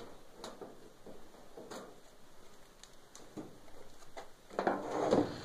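Screwdriver working screws out of an electric oven's sheet-metal cabinet: scattered light clicks and taps against the metal, then a louder stretch of handling noise about four and a half seconds in.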